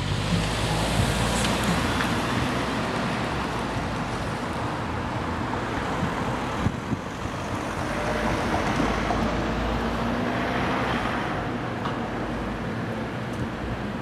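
Steady rumble of street traffic, with some wind on the microphone.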